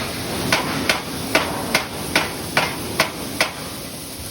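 Eight sharp knocks in a steady rhythm, about two a second, like hammer blows on a hard object, over a steady background noise.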